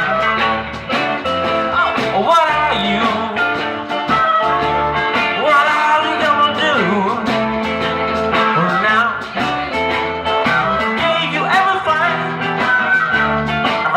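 Live blues band playing: guitar over bass and drums.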